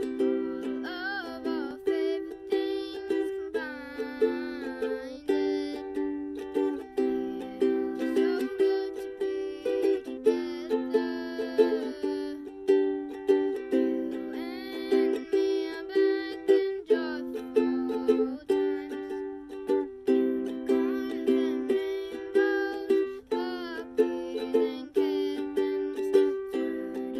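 A child singing a gentle song to her own ukulele, strumming chords in a steady rhythm.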